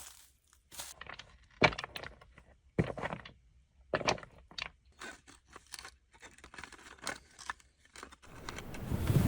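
Foley crunches: a string of separate crunching steps, often about a second apart. A low rumbling noise rises in near the end.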